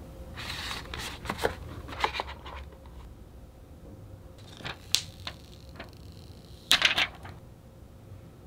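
Clear plastic packaging tray crinkling and clicking as a phone case is handled and pulled from it, with a short run of sharp crackles about seven seconds in.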